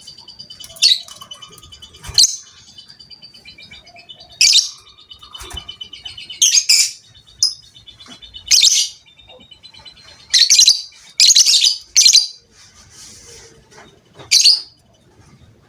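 Lovebird chattering: a fast, even ticking trill broken by about a dozen short, loud, harsh shrieks, most of them bunched in the second half.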